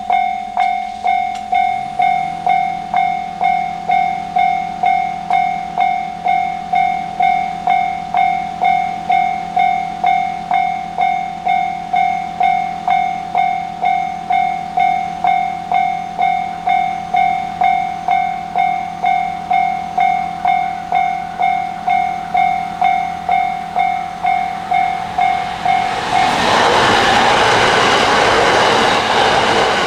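Level crossing warning bell ringing steadily at about one and a half dings a second. About 26 seconds in, a train runs over the crossing with a loud rushing, rumbling noise that all but drowns the bell, then begins to fade.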